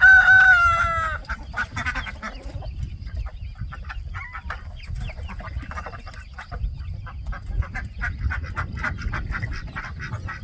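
A rooster crowing once at the start, one long call that drops in pitch as it ends, followed by chickens clucking and calling.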